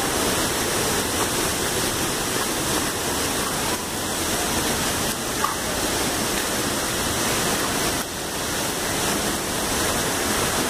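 Pandav Falls, a waterfall dropping about 30 metres into a pool, rushing steadily: an even, unbroken noise of falling water.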